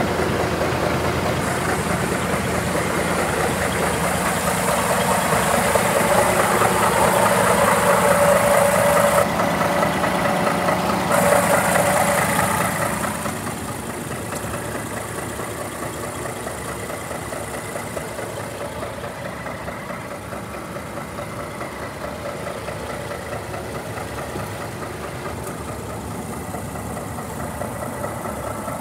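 Scania 470 truck's 12-litre straight-six diesel engine idling steadily. It is louder beside the hook-lift hydraulics and drops to a quieter, muffled idle about halfway through, heard from inside the cab.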